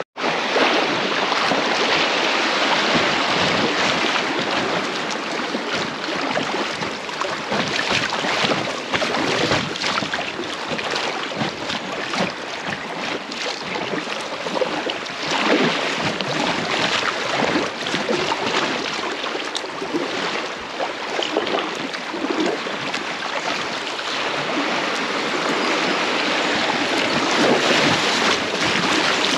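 Fast-flowing river water rushing and splashing steadily, cutting in abruptly just after a momentary break at the start.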